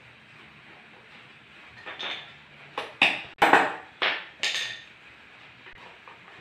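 A quick run of about six sharp knocks on a wooden chair frame as a peg is struck down into the top of a wooden leg, the loudest about three and a half seconds in.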